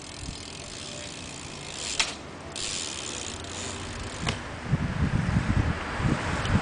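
BMX bike's rear hub ratcheting as it coasts, with two sharp knocks, the second about four seconds in as the tyres land from a hop. An irregular low rumble follows near the end.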